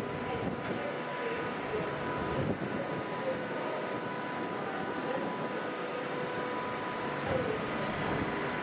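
Steady hum of a train approaching through the station, with a thin continuous whine over it.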